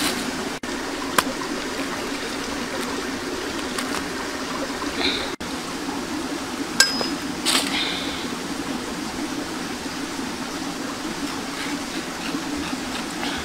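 Steady rushing of flowing water, with a few sharp clicks about a second in and again around seven seconds in.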